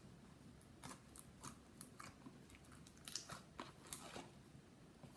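Faint, scattered plastic clicks and crackles of a slime container being opened and handled.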